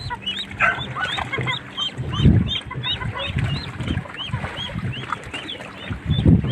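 Ducklings peeping shrilly and continuously, about three to four short calls a second, with water sloshing around a wading person about two seconds in and near the end.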